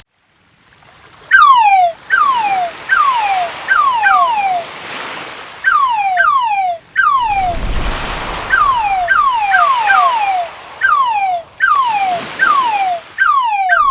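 Repeated short chirps, each a whistle that falls in pitch, coming in quick runs of roughly two a second, over a swelling and fading wash like surf on a beach.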